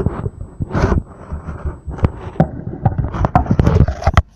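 Utensil scraping and knocking in a container as soap slime is mixed, in a quick irregular run of clicks and scrapes.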